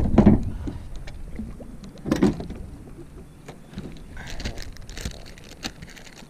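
Handling and movement noise aboard a small carpeted jon boat: a low rumble with scattered knocks and bumps, the loudest at the start and about two seconds in. Near the end comes a run of light clicks and crinkles as plastic packs of soft baits are handled.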